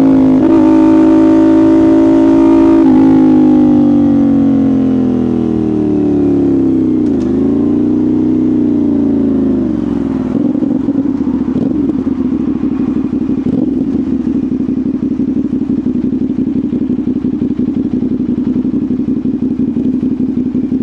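CFMoto 450SR parallel-twin motorcycle engine and exhaust slowing down, its note falling steadily for several seconds with a brief dip and pick-up about seven seconds in, then settling into a steady, lumpy idle.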